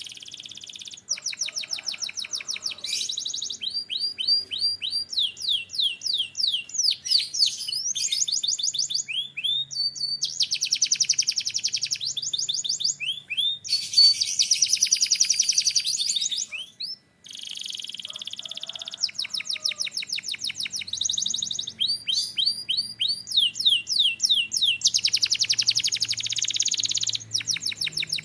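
Male canary singing a continuous song of rapid trills and repeated high sweeping notes in changing phrases, with a short pause about two-thirds of the way through.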